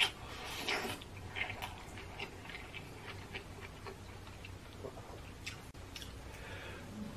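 Close-miked chewing of a mouthful of food: irregular wet smacks and mouth clicks, a little louder in the first second.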